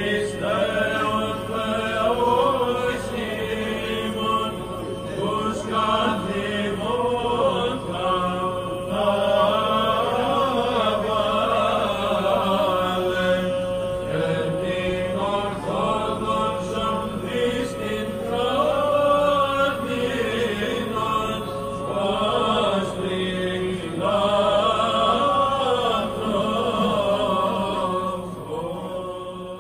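Byzantine chant in the Greek Orthodox style: voices singing a winding melody over a steady held drone note (the ison).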